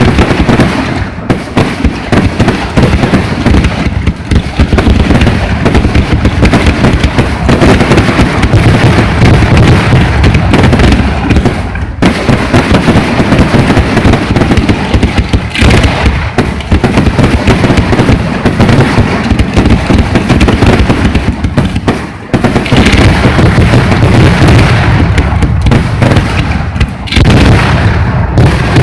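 Aerial fireworks exploding in a dense, almost unbroken barrage: booms and bangs overlapping one after another with hardly a pause, very loud.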